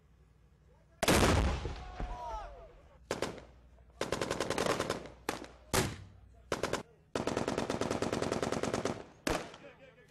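A loud blast about a second in, followed by bursts of automatic gunfire: several short bursts, then a long, even burst of about two seconds near the end.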